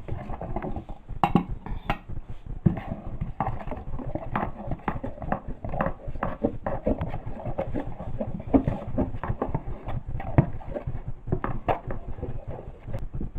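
A spoon clinking and scraping in a bowl with irregular knocks, a few of them sharper and louder, as sliced African oil bean (ugba) is stirred into a thickened palm-oil mixture.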